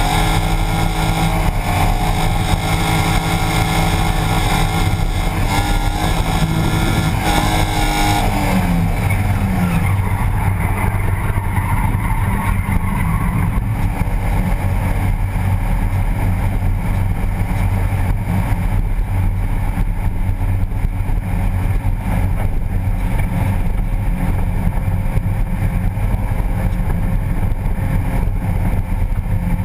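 BMW E30 drift car's engine, heard from inside the engine bay, held at high revs for about eight seconds; the revs then fall away and it runs on lower and rougher for the rest.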